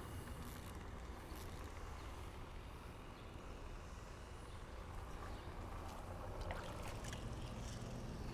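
Faint, steady outdoor background with a low rumble and light water noise, with a few brief clicks about six and a half seconds in.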